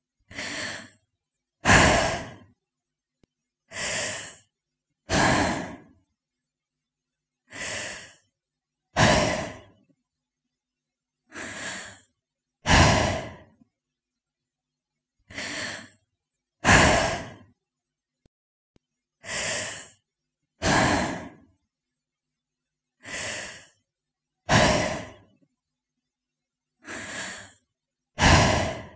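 A woman breathing slowly and deeply, in eight even cycles about four seconds apart. Each cycle is a softer breath followed closely by a louder, sigh-like one.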